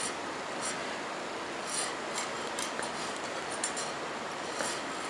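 Metal knitting needles clicking lightly against each other, about half a dozen soft clicks spread over a steady hiss, as stitches are worked in wool.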